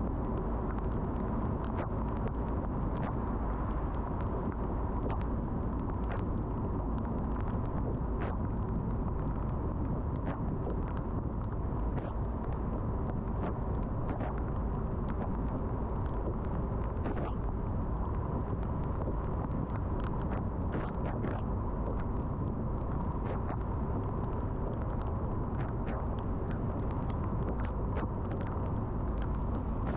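Car driving on a rainy road: a steady low rumble of engine and tyres, with scattered sharp ticks of raindrops hitting the car.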